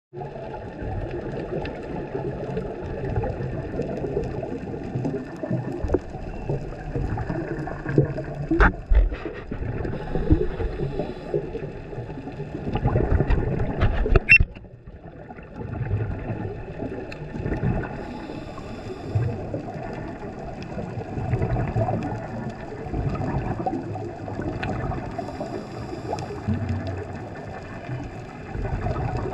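Muffled underwater noise picked up by a camera held below the surface: water sloshing and gurgling that swells and fades, with a few sharp clicks, the loudest a little past 8 seconds and about 14 seconds in.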